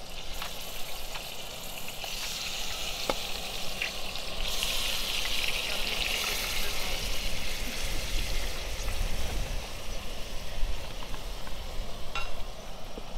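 Seasoned cubes of raw meat sizzling as they are pushed off a wooden cutting board into a hot pot on a portable gas burner; the sizzle swells a few seconds in as more meat goes into the pot. A few sharp clicks of the cleaver against the board and pot.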